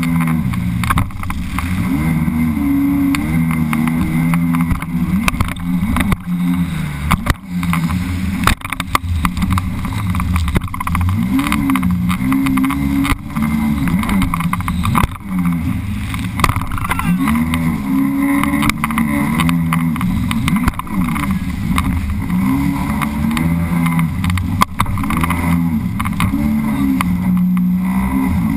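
Sea-Doo personal watercraft engine running at speed, its pitch rising and falling in repeated swoops, with splashing and knocks of the hull over the chop.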